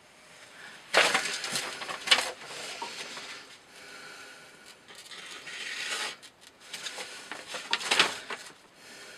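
Handling noise of objects being moved on a hard surface: irregular rustling and clatter, with sharp knocks about a second in, just after two seconds, and near the end.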